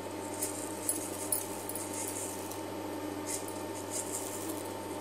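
Fennel seeds sprinkled by hand onto rice flour in a pan, making a few soft ticks over a steady faint background hum.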